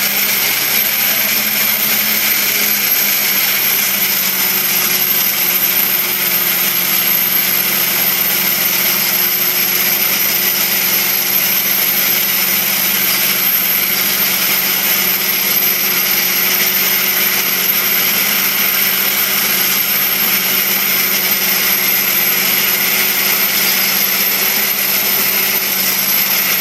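Dry ice blasting gun with a flat nozzle blasting against painted wood, a loud steady hiss as it strips synthetic resin paint down to bare wood, with a steady low hum beneath it.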